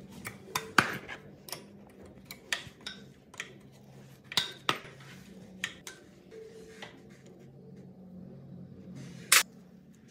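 Hand tools clinking on an old generator engine's metal: a spanner and pliers tapping and clicking against a bolt and the crankcase, about a dozen sharp irregular clinks, the loudest about a second in and near the end.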